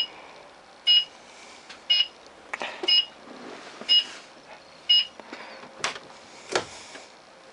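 Blue Bird Vision school bus turn-signal indicator beeping, a short high beep with a click about once a second, six times. The beeping stops about five seconds in, then come two sharp knocks.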